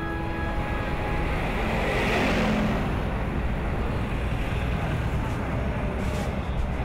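Road traffic going by: a steady low rumble of engines and tyre noise, with one vehicle passing louder about two seconds in.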